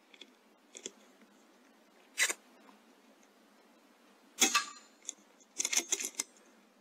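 A series of sharp mechanical clicks and knocks close to the microphone, the loudest about four and a half seconds in and a quick cluster of clicks near the end: handling noise from the rifle and scope.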